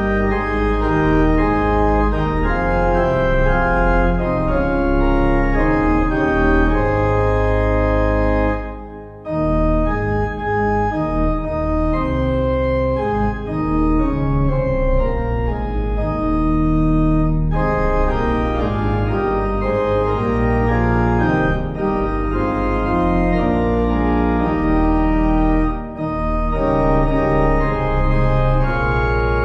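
Organ playing held chords over a deep sustained bass, with the chords changing every second or so and a brief break about nine seconds in.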